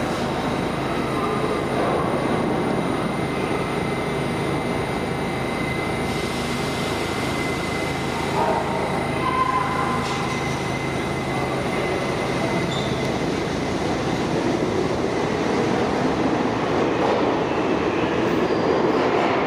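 An R160 subway train pulls away from the platform and runs off into the tunnel. A steady high tone sounds over the running noise and fades out about halfway through.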